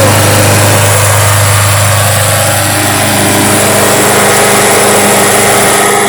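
Snapper push mower's small engine running steadily on its first start after the deck rebuild.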